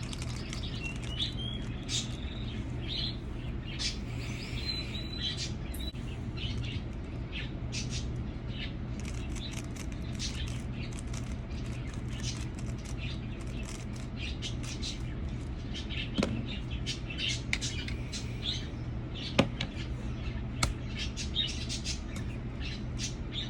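A small bird chirping in short, frequent calls over a steady low hum, with a few sharp clicks in the second half.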